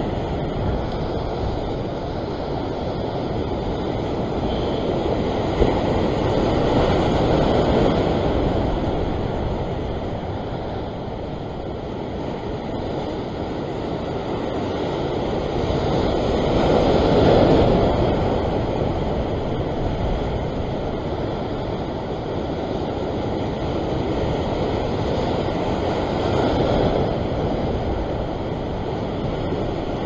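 Ocean surf breaking and washing over a rock ledge, a steady rush that swells louder with each set of waves, roughly every nine or ten seconds, loudest about halfway through.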